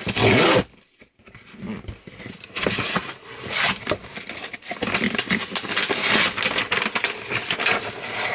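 A cardboard subscription box being opened by hand: a loud burst of noise in the first half second, then irregular rustling and scraping of cardboard and packaging.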